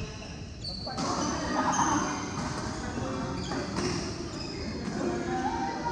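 Badminton hall ambience between rallies: scattered sharp knocks of rackets hitting shuttlecocks and short high squeaks of court shoes on the mat floor, with faint voices in the background, all echoing in the large hall.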